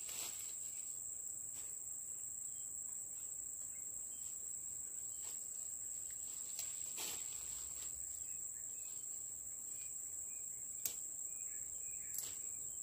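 An insect's continuous high-pitched trill, held on one steady tone, with a few faint clicks; the sharpest click comes about eleven seconds in.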